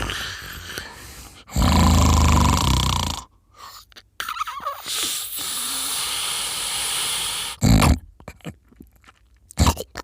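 A person snoring: a loud, low snore lasting about two seconds, then a long breathy stretch, and a short loud burst near the end.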